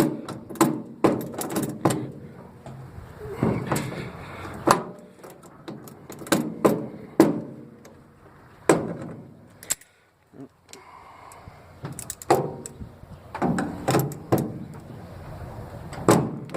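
Sharp metal clanks, knocks and rattles of hand tools working at fittings on an aluminium diamond-plate truck tool box. The sound drops out briefly about ten seconds in.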